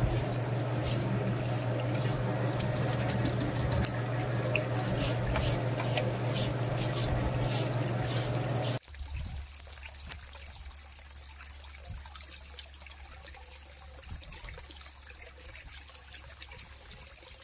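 Water trickling and running across the riffled deck of a gold shaker table, over a steady machine hum. About nine seconds in, the sound drops suddenly to a quieter trickle over a lower hum.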